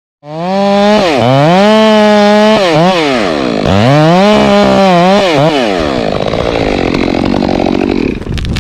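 Stihl MS 462 two-stroke chainsaw running at high revs, its pitch dipping and rising several times, then dropping lower and rougher under load as it cuts into pine. A few sharp cracks near the end.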